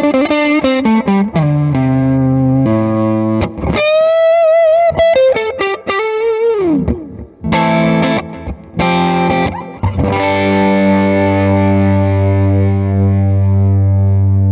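Electric guitar played through an Electra MPC-12 compressor module with delay on: a falling run of single notes, a bent note held with vibrato, a few short chords, then a last chord left ringing out.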